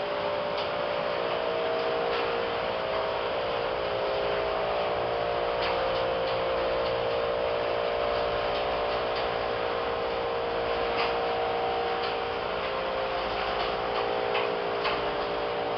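Steady whoosh of commercial kitchen ventilation and machinery, with several constant humming tones and a few faint clicks.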